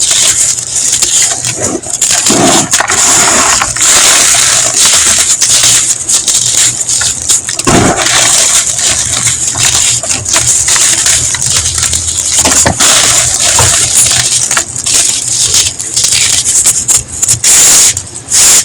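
Blocks of gym chalk powder being crumbled: a steady, dense crunching and crackling made of many crisp, sharp clicks, with a squeaky edge.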